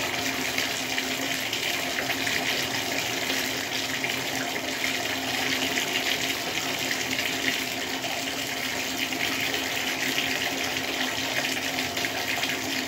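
Bathtub filling from the tap: water running steadily into the tub, which cuts off suddenly near the end.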